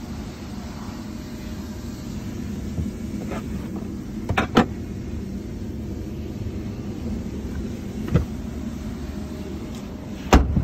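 Knocks from the boot floor panel of a Suzuki hatchback being lifted and handled: two knocks about four and a half seconds in, another near eight seconds, and the loudest near the end, over a steady low hum.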